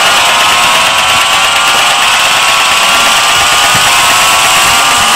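Loud, distorted buzzing synth from an electronic dance track, held as one dense chord whose pitch creeps slowly upward.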